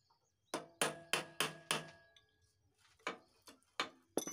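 Hammer blows on the steel steering-head tube of a motorcycle frame: a run of five ringing strikes, about three a second, then several lighter knocks near the end.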